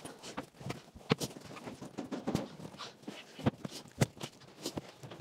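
Irregular knocks and thumps with light rustling as the table top and wooden bed panels are moved and set down by hand, working a table that is stuck.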